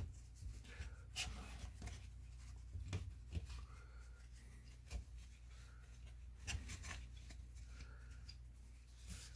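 Paper towel dabbing and lightly rubbing on a circuit board, soft scattered taps and rustles over a steady low hum.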